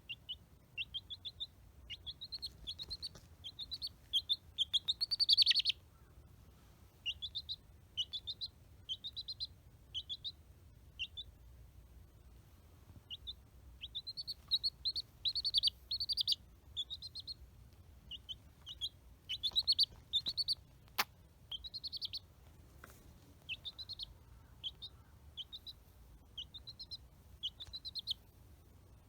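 A baby chicken chick peeping: runs of short, high peeps of a few per second, broken by pauses. There is a single sharp click about 21 seconds in.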